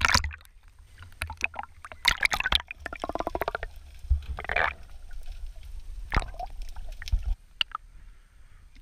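Sea water splashing and sloshing around a handheld action camera as it dips in and out of the surface, with muffled gurgling while it is under water. The sounds come as irregular splashes and crackles over a low rumble, growing quieter near the end.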